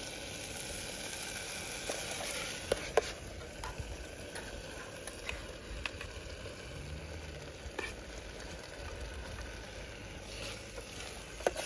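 Masala gravy sizzling in a pan as paneer is stirred in, with a few sharp clicks of the spoon against the pan scattered through.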